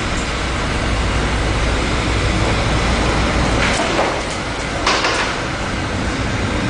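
Steady rush of storm wind and heavy sea with a low rumble underneath, broken twice by a loud splash as waves crash over a ship's bow, about three and a half and five seconds in.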